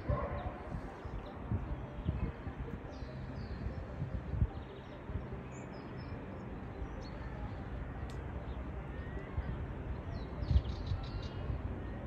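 Outdoor ambience of small birds chirping now and then, with a quick run of chirps near the end, over a low, uneven rumble.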